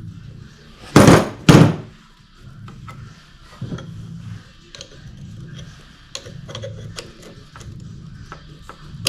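Two loud knocks about a second apart, then a run of light metallic clicks and taps: hand tools working a steel roller chain's master link into place on a snowblower drive chain.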